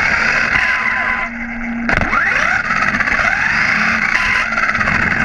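HSP XSTR Pro RC buggy's electric motor whining and rising and falling in pitch with the throttle, over rough tyre and road noise. About a second and a half in, it lets off briefly, then climbs again.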